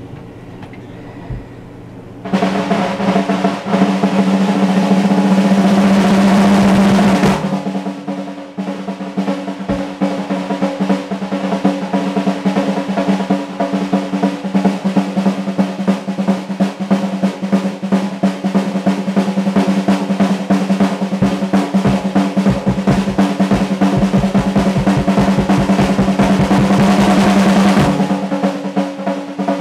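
Drum kit solo: about two seconds in a fast, continuous snare drum roll starts, giving way after about five seconds to rapid strokes across the snare and toms with low drum hits, then a second continuous roll near the end.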